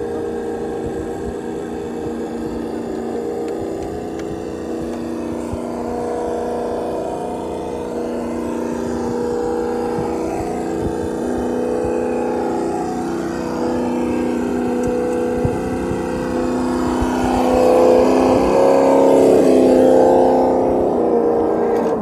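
Traxxas TRX-4 radio-controlled crawler's electric motor and gears whining steadily as it drives, growing louder with its pitch wavering near the end.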